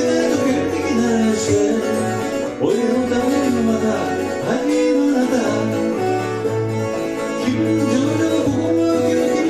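Steel-string acoustic guitar strummed steadily, with a man singing over it.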